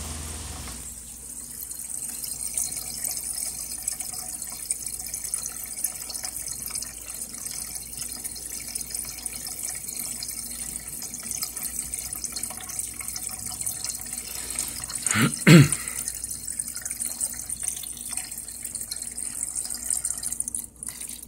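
Coolant splashing and gurgling in a BMW E90's open expansion tank as the electric water pump circulates it to bleed air from the cooling system. One brief, louder sound comes about fifteen seconds in.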